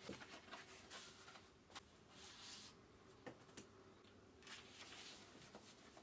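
Faint rustling of a paperback book's paper pages being handled and turned: two short rustles of about half a second each, among a few light clicks and taps.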